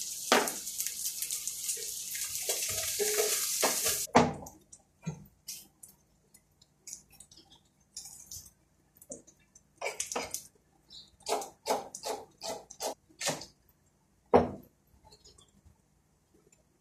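Onion frying in butter in a pan, sizzling steadily, then cutting off suddenly about four seconds in. After that a wooden spoon stirs and knocks against the metal pan in scattered taps and scrapes, with two sharper knocks.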